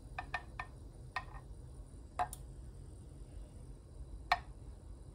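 Steamed milk poured from a stainless steel pitcher into a cup of espresso: quiet, with a few small clicks and ticks over a low steady hum, the sharpest about four seconds in.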